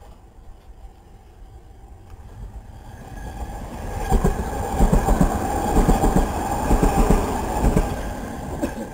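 Electric multiple unit passing through a station at speed without stopping: a rumble builds from about three seconds in, then loud wheel clatter over the rail joints with a steady whine for about four seconds, dropping away near the end.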